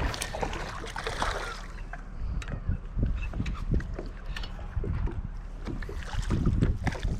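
Wind and water noise on a small fishing boat: a low, uneven buffeting with irregular thumps and scattered sharp clicks and knocks, plus a brief hissing, splashy patch in the first couple of seconds.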